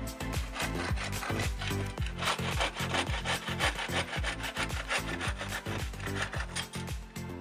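Bow saw cutting across a wooden board in quick back-and-forth strokes, the blade's teeth rasping through the wood.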